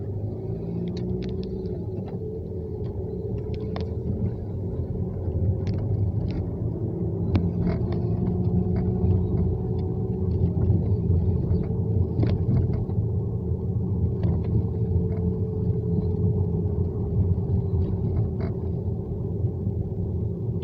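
Car engine running, heard from inside the cabin as a steady low rumble with a held hum, growing a little louder over the first several seconds, with scattered faint clicks over it.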